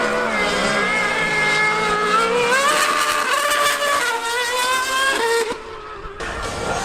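High-revving racing engine at full song on the track, its pitch climbing and stepping down through gear changes. It fades briefly about five and a half seconds in, then picks up again.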